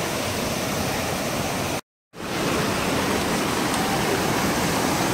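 Steady rush of a mountain stream and small waterfall running over stones. It breaks off in a brief silence about two seconds in, then returns a little louder.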